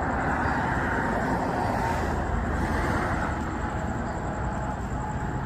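Steady background traffic noise, an even rumble with a low steady hum underneath.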